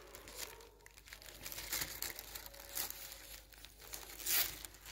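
Thin kite sheet crinkling in the hands as thread is worked through the holes in it and knotted, in several short rustles, the loudest near the end.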